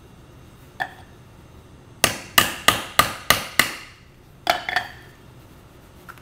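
A hammer driving a 16-penny nail to punch a hole through a duct-taped sheet of tin. There is one tap, then six quick strikes at about three a second, then two more taps.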